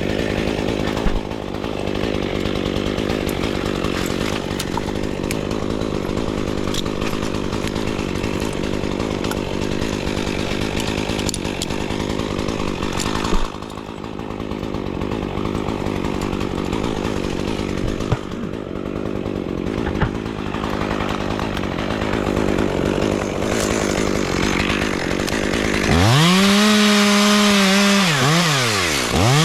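Chainsaw running steadily at low speed, then revved hard to a high whine near the end, easing off and revving up again.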